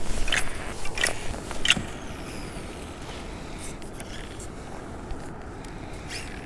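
Steady wind and water noise on an action camera's microphone aboard an ocean kayak, with three short knocks in the first two seconds.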